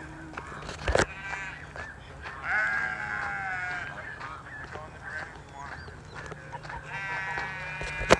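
Calls from a small flock of domestic geese honking, mixed with sheep bleating, some calls lasting about a second. Two sharp knocks cut in, about a second in and near the end, the second the loudest sound.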